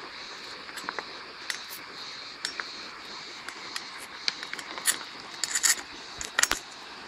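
Fire-heated stones clacking and knocking against each other as they are dropped and pushed into a small earth pit with a long-handled tool: a scatter of irregular sharp knocks, with a cluster of louder ones in the second half.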